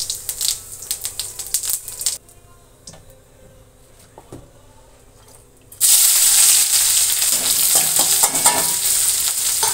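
Cumin seeds crackling in hot oil in a kadhai, then a few seconds of near quiet. About six seconds in, chopped onion and green chilli go into the oil with a sudden loud sizzle that keeps going.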